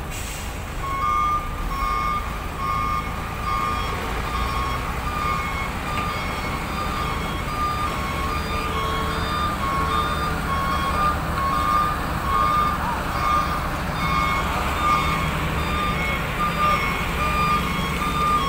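A truck's reversing alarm beeping over and over, alternating between two pitches, over the steady low running of the diesel engine as the truck hauling a stacked semi-trailer manoeuvres.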